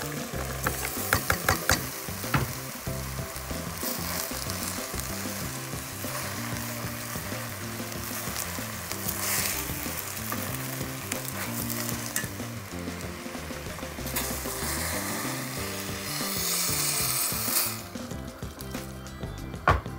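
Chopped green beans, okra and potato sizzling as they are tipped into a pot of frying tomato and onion, with a few clatters as they land, then stirred with a spatula. Near the end comes a louder rush as strained broth is poured in, and the sizzling dies down.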